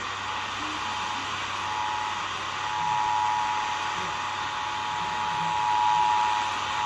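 Emergency Alert System attention signal: a steady two-tone alert sound that fades in about two seconds in and then holds, over a loud hiss of radio static.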